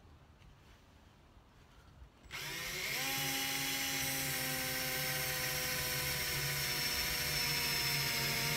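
Cordless drill boring a pilot hole into the top of a van's rear door frame: the motor starts about two seconds in, rises in pitch for a moment, then runs steadily at speed.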